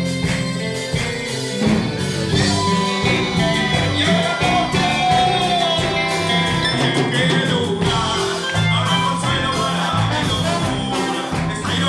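A band playing live: drum kit and congas keeping the beat under guitar, with a voice singing over it.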